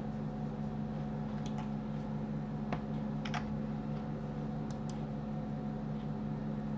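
A handful of short, sharp computer mouse clicks, scattered and irregular, over a steady low electrical hum.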